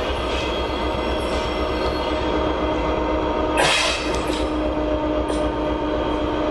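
Freight train boxcars rolling past on the rails: a steady wheel-and-rail rumble with a thin steady squeal, and one louder clank a little over halfway through.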